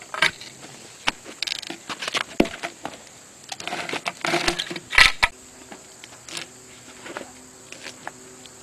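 Irregular metallic clicks, knocks and scraping of a log being turned on a sawmill loading arm with a log turner, the loudest knock about five seconds in. After that only a faint steady hum remains.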